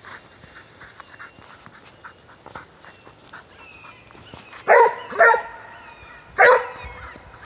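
Hog dog baying a wild hog: three loud barks, two in quick succession about halfway through and a third about a second later.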